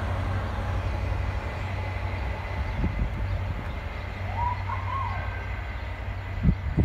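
Low, steady drone of a passing train, slowly fading, with a few dull low thumps near the end.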